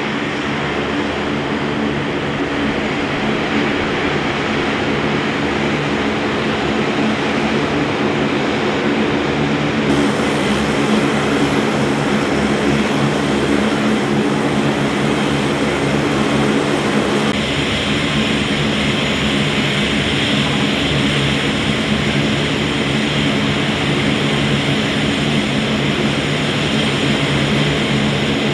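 KC-130J Super Hercules turboprop engines (four Rolls-Royce AE 2100D3s with six-bladed propellers) running on the ground. It is a loud, steady propeller sound with several low steady tones, shifting slightly in tone twice along the way.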